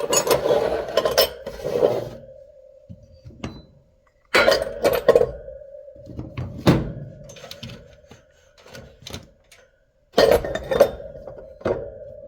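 Metallic clinks and knocks over a steady ringing tone, in bursts that start abruptly about four and ten seconds in.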